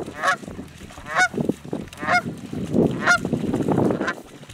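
Goose honks repeating about once a second, over the splashing of a dog wading through shallow water with a retrieved goose, heaviest in the second half.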